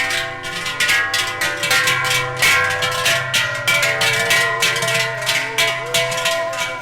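Many large cowbells clanging and ringing together in a dense, steady jangle, the bells of cattle walking in a procession. A held, wavering tone joins in about halfway through.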